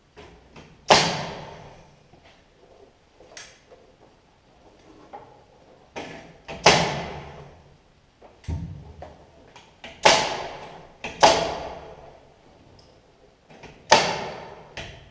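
Framing nail gun firing nails into wall studs: about half a dozen sharp shots spaced a few seconds apart, each with a short ringing tail, and one duller thud midway.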